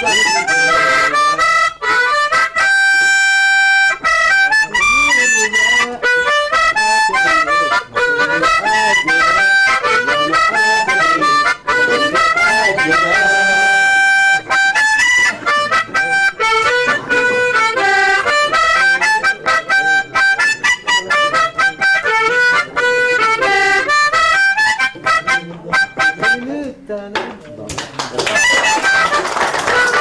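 Harmonica played solo, cupped in the player's hands: a lively tune of quick, changing notes and chords, with a few longer held notes.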